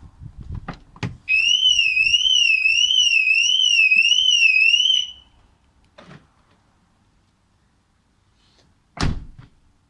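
Mercedes-Benz alarm siren sounding when the door of the locked car is opened: a loud warbling tone rising and falling about one and a half times a second for nearly four seconds, then cutting off suddenly, showing that the second-hand replacement siren works. A click comes just before it, and a sharp knock near the end.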